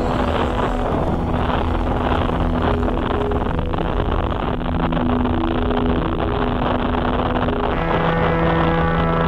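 Small gasoline engine of an RC model airplane, the 50cc Wilga tow plane, idling steadily, its note shifting near the end, with some wind on the microphone.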